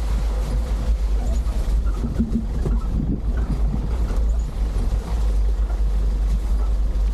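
A 4x4 vehicle driving on a rough off-road trail: a steady low rumble with scattered rattles, and wind buffeting the microphone.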